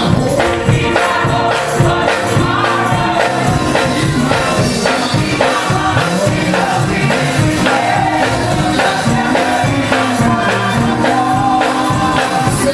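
Mass choir singing an upbeat gospel song with band accompaniment, with tambourine and drums keeping a steady beat.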